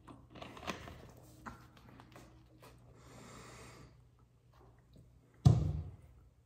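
Soft mouth and breath sounds after a sip of soda, then a single loud thump about five and a half seconds in as the plastic soda bottle is set down on the table.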